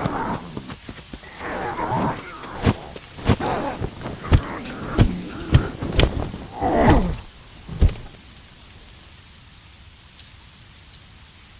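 Short growling roars from a creature and a run of about seven sharp bangs and thuds over some five seconds, as of a camping cot being hit. They stop about eight seconds in, leaving a steady faint hiss.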